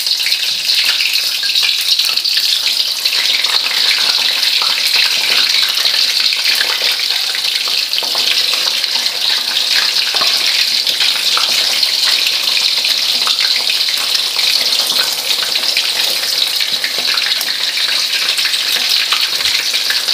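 Salted fish frying in hot oil in a wok: a steady hissing sizzle with fine crackles.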